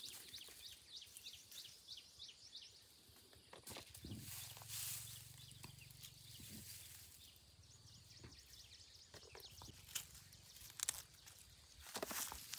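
Bird chirping in quick runs of short, high notes, once near the start and again in the middle, over quiet outdoor ambience with scattered rustles and light knocks.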